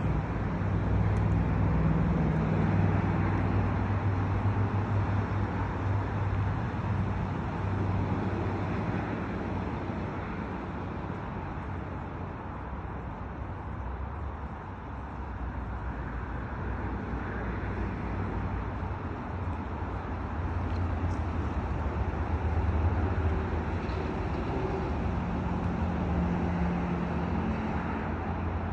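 Steady low rumble of distant road traffic, swelling a little at the start and again near the end.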